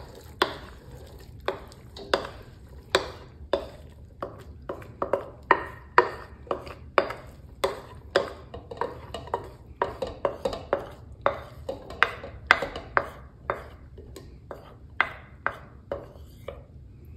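Wooden spoon knocking and scraping against a glass mixing bowl and a metal pot while scooping chopped vegetables: a run of sharp, irregular knocks, about two a second.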